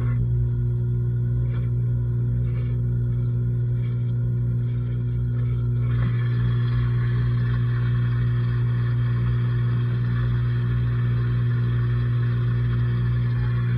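LG washing machine running mid-cycle, heard from inside the drum: a steady low motor hum with a few faint knocks, joined about six seconds in by a steady hissing rush.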